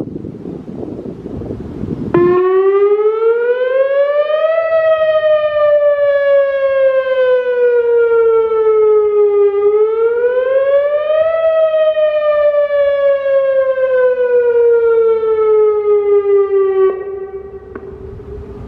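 Whelen WPS 2903 electronic outdoor warning siren sounding its monthly test in a slow wail: the tone starts about two seconds in, rises and falls twice, and drops away sharply near the end. Wind on the microphone before the siren starts.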